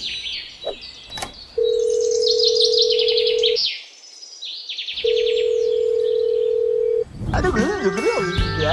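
Telephone ringback tone: a steady low beep sounding twice, each about two seconds long with a short gap between, over birds chirping. A warbling tune comes in near the end.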